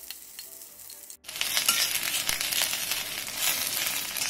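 Sliced onion, garlic and coconut frying in oil in an iron kadhai, sizzling while a steel spatula stirs and scrapes the pan. The sizzle is quieter at first and jumps much louder after about a second, with the spatula's scrapes and clicks running through it.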